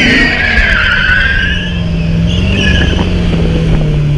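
BMW E92 M3's V8 held at high revs while the rear tyres squeal in a drifting burnout; the squeal is loudest in the first second and a half, fades, and briefly returns past the two-second mark.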